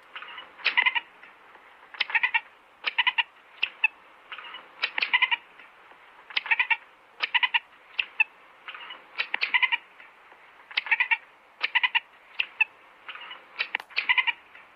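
A domestic animal's short, repeated calls, in quick clusters of several notes about once a second.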